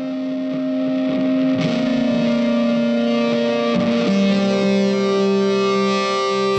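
Background music: held guitar chords, the chord changing about four seconds in.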